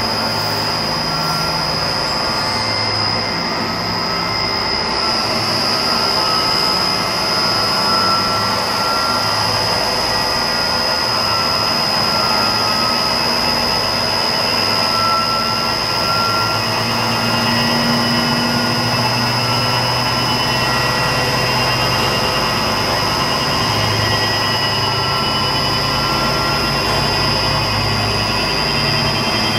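Toyoda G100-II CNC cylindrical grinder running under power: a loud, steady machine noise with a constant high whine over a low hum.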